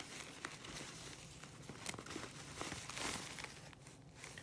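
Hands rustling a cloth drawstring dust bag and the tissue paper around it while untying and pulling the bag open: soft crinkling with small handling clicks, and a louder rustle about three seconds in.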